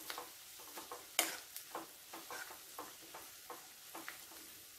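Spatula stirring sliced onions, green chillies and curry leaves in a ceramic-coated frying pan: repeated soft scraping strokes, one louder scrape about a second in, over a faint sizzle of the onions and spices frying.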